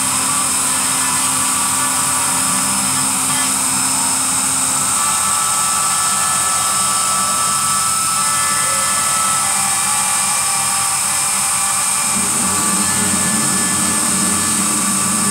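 Dremel rotary tool running at high speed, its bit engraving bone on a human skull: a steady high-pitched whine and grinding hiss. The lower tone shifts a little about five seconds in and again near the end as the bit works the surface.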